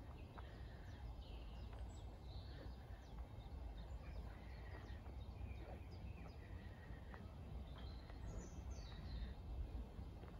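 Several small woodland birds singing and chirping, short calls and trills scattered through the whole stretch, over a steady low rumble.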